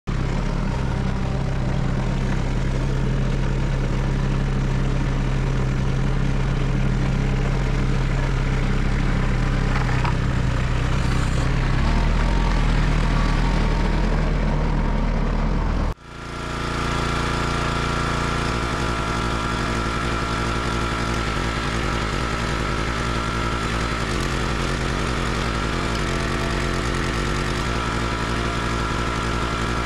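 A tractor engine running steadily as the loader tractor drives up, a little louder shortly before halfway. The sound then cuts abruptly to a CountyLine 32-ton log splitter's gas engine running steadily at constant speed.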